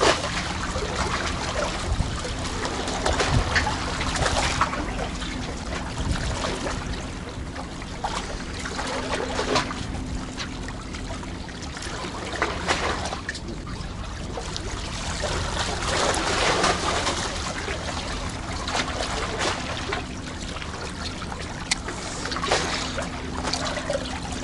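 Sea water sloshing and washing against the concrete tetrapods of a breakwater, swelling and easing every few seconds.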